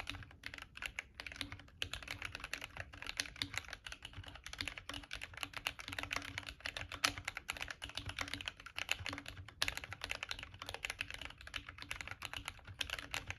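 Continuous fast typing on a Glorious GMMK Compact mechanical keyboard with lubed CIY Evo Red switches and OEM-profile keycaps, its PCB wrapped in Press n Seal and its case dampened with foam and shelf liner.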